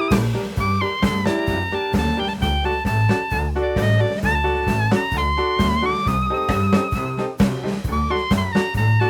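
Background music in a jazz style: a melody line with wavering held notes over a steady, evenly pulsing bass beat.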